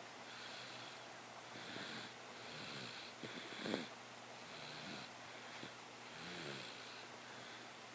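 A person snoring softly in sleep: a run of noisy, wheezy breaths, with one louder snort about halfway through.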